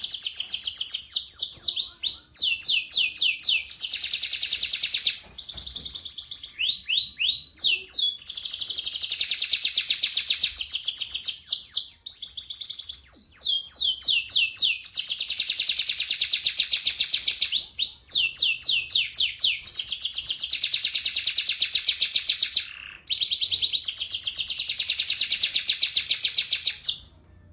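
Domestic canary singing its rolling song: long, fast, even trills of several seconds each, broken by short runs of rising sweeping notes. The song cuts off abruptly near the end.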